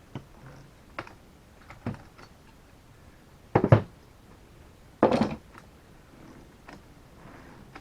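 Tools and metal parts being handled: a few light clicks, then two louder short clattering knocks about three and a half and five seconds in.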